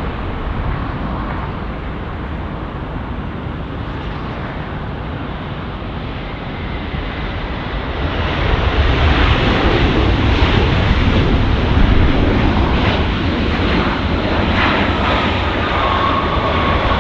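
Jet airliner engines heard as the plane passes on its landing approach, a broad steady noise that grows louder about eight seconds in.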